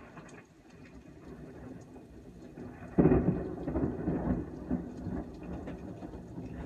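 Thunder: a low rumble builds, then a loud, sudden crack about three seconds in rolls into a rumble that slowly fades.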